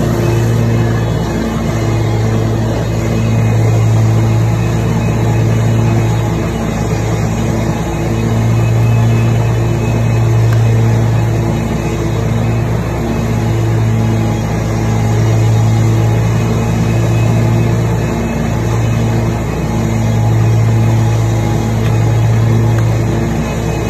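Riding lawn mower's engine and cutting blades running steadily while mowing grass, a continuous drone that rises and falls gently in loudness every few seconds.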